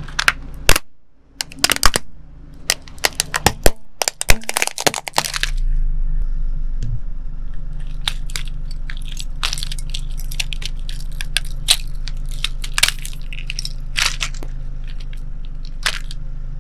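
A plastic Lightning McQueen toy car cracking and snapping under a car tyre, with a quick run of sharp cracks through the first five seconds. Then a steady low hum with scattered clicks and rattles as the broken plastic toy is handled.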